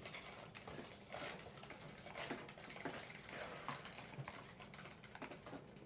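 Faint, irregular clicks and taps of homemade slime being stirred in a container.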